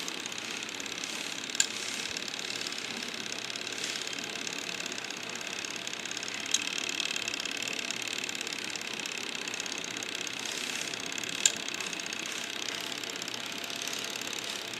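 Small machine mechanism running with a steady whir, with three sharp clicks about five seconds apart.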